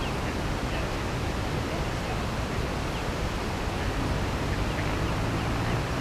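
Outdoor nature ambience: a steady rushing noise with a few faint high chirps now and then.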